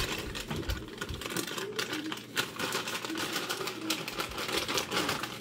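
Pancake batter sizzling in a hot frying pan: a steady, dense crackle of small ticks.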